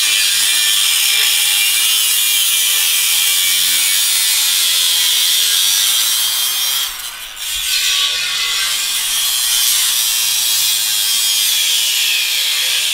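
Angle grinder cutting the truck's steel exhaust pipe: a loud, steady, high-pitched grinding that lets up briefly about seven seconds in, then carries on and cuts off suddenly.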